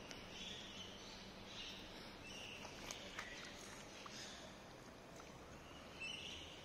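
A dog chewing on grass, heard as a few faint small clicks, over quiet outdoor ambience with soft high chirps now and then.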